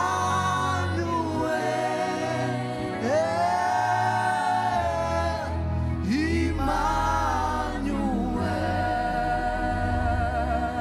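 Gospel worship music: voices sing long held notes with vibrato and sliding pitch over a steady instrumental backing with sustained bass notes.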